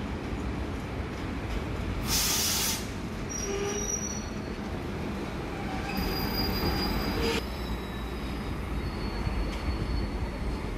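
Vintage Red Rattler electric train running along the platform: a steady low rumble with high-pitched wheel squeals coming and going, and a brief loud hiss about two seconds in.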